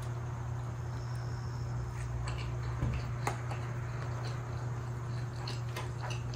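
Scattered light clicks and taps of chopsticks against a plastic sushi takeout tray and its clear lid while sushi is picked up and eaten, over a steady low hum.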